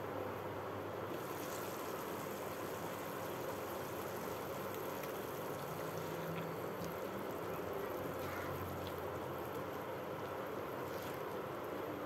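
Broccoli and jicama simmering in a little liquid in a wok, a steady hiss that grows brighter once the lid comes off about a second in, with a few faint knocks from a silicone spatula stirring the vegetables.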